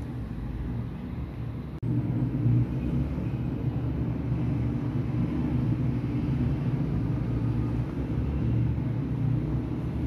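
A steady low engine rumble, with a brief drop-out about two seconds in, after which it runs on slightly louder.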